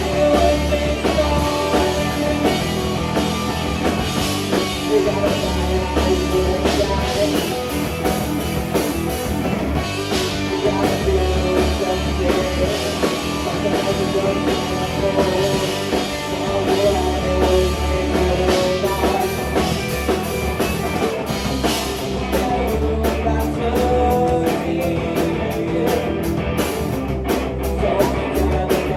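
Live rock band playing a song, with drum kit, guitar and long held bass notes, and a voice singing.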